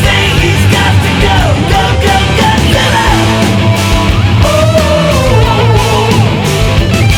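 Loud rock music soundtrack with a driving drum beat and gliding lead lines.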